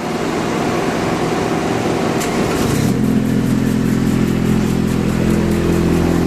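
RIPPA RS06-2 skid steer loader's engine running under a little throttle just after starting on its repaired starter. A little under three seconds in it settles from a rougher run into a steady, lower note.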